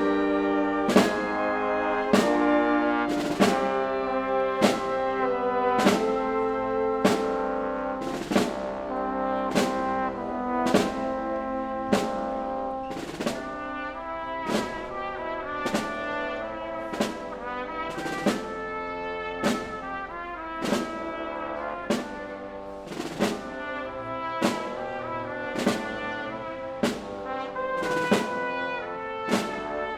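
Symphony orchestra playing slow, solemn music led by trombones and trumpets, with held chords over a steady percussion stroke about once every second and a bit, in the manner of a Spanish Holy Week processional march.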